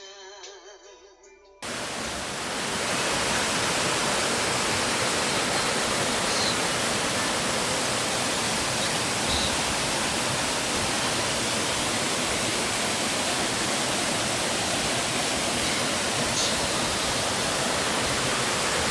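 Background music cuts off about a second and a half in, and a loud, steady rushing noise takes over.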